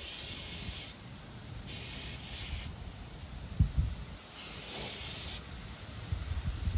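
Aerosol brake cleaner spraying in three short bursts, each about a second long, with a knock between the second and third.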